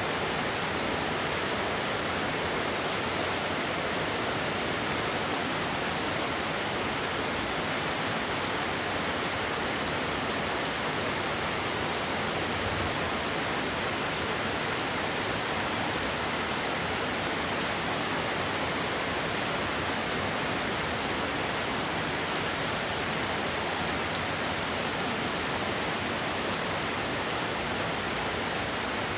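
Steady, dense rainfall: an even hiss of rain falling, with no single drops or thunder standing out.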